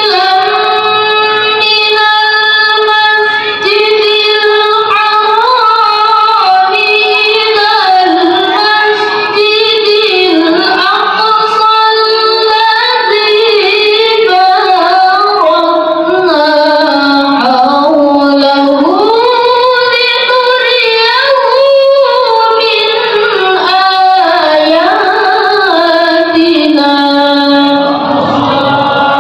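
A boy reciting the Quran in the melodic tilawah style into a handheld microphone, in long held phrases that waver and glide up and down in pitch with ornamented turns.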